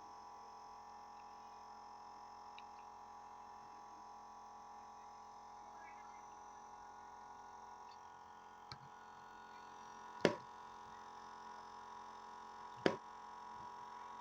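Small electric pump used as a compressor, running with a steady faint hum, slowed down by the gas filled into it. Two short knocks come near the end.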